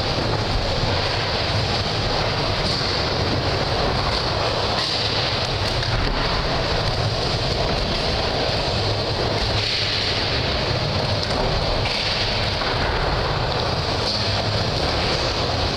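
Skateboard wheels rolling on a wooden mini ramp: a steady rumble with a hiss above it.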